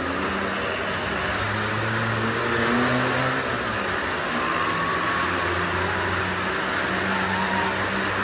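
Several cars and motorcycles running at speed around the wall of a well-of-death drum. Their engines make a continuous, dense din, with engine notes rising and falling as the vehicles circle.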